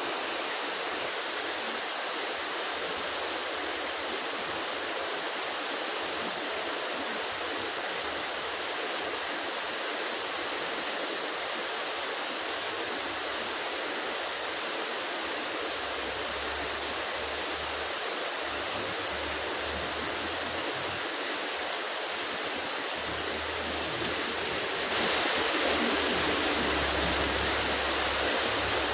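Heavy rain falling steadily, an even hiss of water, growing louder about 25 seconds in.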